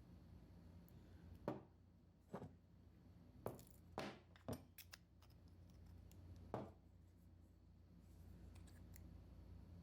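Six or so faint clicks and taps of small microphone parts being handled, the loudest about a second and a half in, over a low steady hum.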